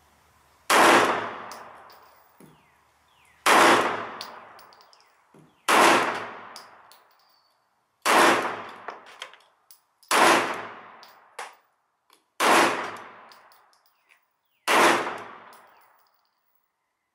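Seven shots from an STI 1911 pistol in 9mm, fired slowly about two seconds apart, each echoing for about a second. Light clicks fall between some of the shots.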